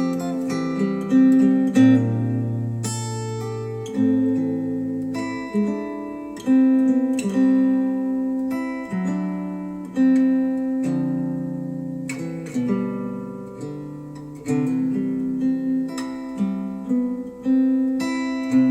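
Acoustic guitar music, plucked notes and chords left to ring, played back through Wharfedale Denton 80th bookshelf speakers driven by a Sony STR-DG500 receiver.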